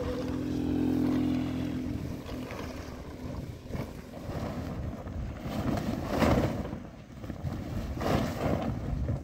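A motor running steadily for the first couple of seconds, then uneven rushing noise like wind on the microphone, with two louder gusts near the end.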